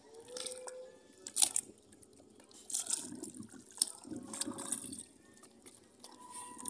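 Sea water splashing and sloshing in several short bursts as a freshly gutted needlefish is rinsed by hand, with a sharp splash about a second and a half in.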